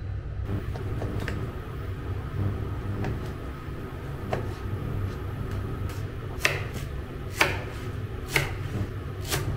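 Kitchen work sounds over a steady low hum: light taps early on, then four sharp knocks about a second apart near the end, like utensils or a knife hitting a board while tom yum ingredients are prepared.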